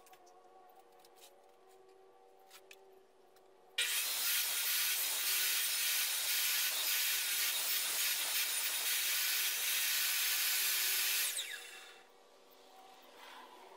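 Sliding miter saw cutting a depth-set notch across two clamped red oak canoe gunwale strips. It starts abruptly about four seconds in, runs steadily for about seven seconds, then winds down as the blade spins to a stop.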